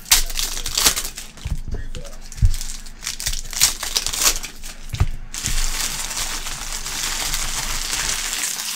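Foil trading-card pack wrapper crinkling and crackling in the hands as it is worked open, then an even rustling hiss for about the last three seconds.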